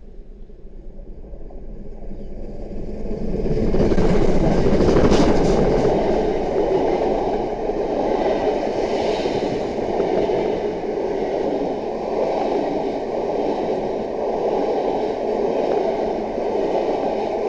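Steam-hauled passenger train passing at speed. The sound builds over the first few seconds and is loudest about four to six seconds in as the locomotive goes by. A long steady rolling rumble of the coaches follows and lasts until near the end.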